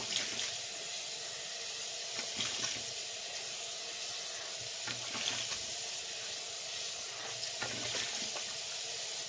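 Tap water running steadily into a bathroom sink while a face is rinsed, with a few soft splashes from hands scooping water.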